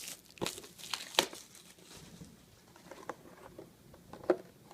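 Packaging of a trading-card box crinkling and tearing as it is opened by hand. There are a few sharp crackles in the first second or so, then quieter rustling, and a single sharp click near the end.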